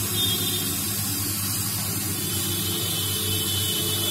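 SMD hot-air rework station blowing steadily onto a phone motherboard, a constant airy hiss over a low hum, while the solder under the audio IC is being heated so the chip can be lifted off.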